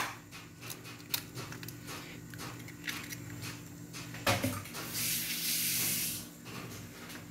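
Metal ladle clicking and knocking against a wide pan of simmering lomi soup, over a steady low hum. About five seconds in, a hiss lasts just over a second.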